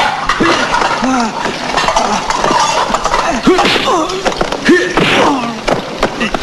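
Hand-to-hand fight: men grunting and yelling in short bursts, with punch and body impacts and kitchenware clinking and clattering.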